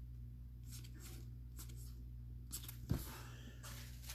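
Trading cards being handled and slid against each other as they are sorted, with a sharp knock about three seconds in, over a steady low electrical hum.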